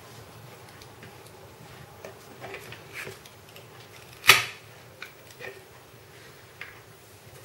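Plastic pry tool scraping and clicking against an iPhone 5S as its glued-in battery is levered out of the case, with one sharp snap about four seconds in.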